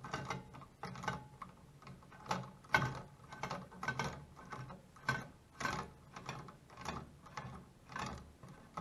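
Lead screw being spun by hand through its nut: a short rasping click about twice a second as it turns, threading out through the end plate.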